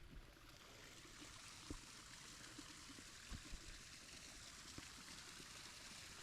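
Faint, steady rush of running water, with a few soft ticks scattered through it.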